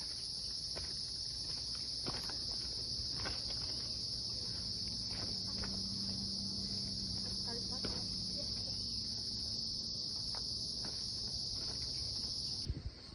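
Steady, high-pitched chorus of insects droning without a break, cutting off suddenly near the end.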